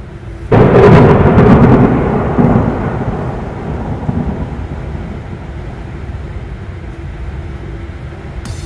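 Thunderclap sound effect: a sudden loud crack about half a second in, then a deep rumble that slowly fades away over several seconds.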